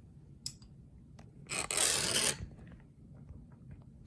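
A few light metallic clicks, then a scraping rub of just under a second about halfway through as the shackle of a freshly picked padlock is drawn out of the lock body, followed by small ticks.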